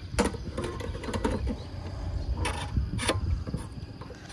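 Sharp clicks and knocks of a scooter's fuel-filler cap and its latch being worked by hand, the loudest near the start and twice more after about two and a half seconds.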